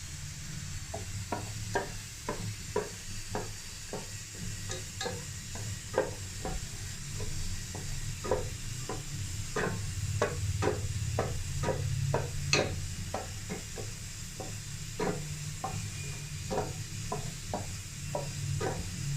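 A spoon stirring sugar as it melts into caramel in a pan over low heat, scraping the pan in quick repeated strokes about two to three a second, over a low steady hum.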